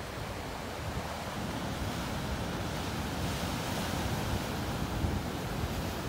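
Atlantic Ocean surf breaking and washing over rocky ledges: a steady rush of white water that swells a little in the middle.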